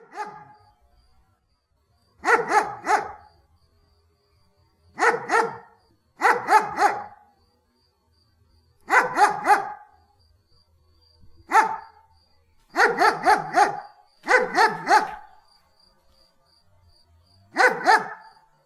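German Shepherd dog barking in quick runs of two to four barks, with pauses of a second or two between runs.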